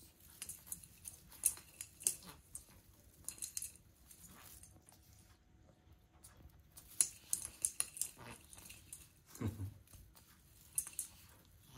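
Plastic needles of a small artificial Christmas tree rustling and crackling in quick, irregular scratchy clusters as a kitten paws and pushes through the branches, with one soft thump late on.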